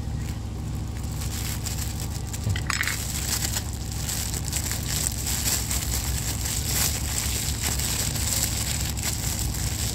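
Thin clear plastic bag crinkling and crackling as hands squeeze a lump of bait dough into it and twist it closed.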